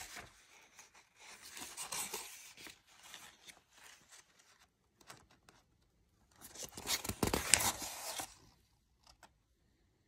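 Paper pages of a bound planner being handled and turned, rustling in several bursts, the loudest about seven seconds in, with a few light taps near the end.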